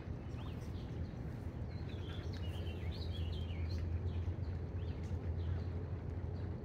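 Small birds chirping in short calls, busiest in the middle, over a steady low rumble.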